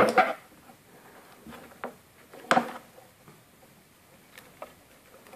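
Handling noise from a paracord bracelet with a plastic buckle and a pair of scissors on a wooden board: a loud knock with a short rustle right at the start, another knock about two and a half seconds in, and a few light ticks between and after.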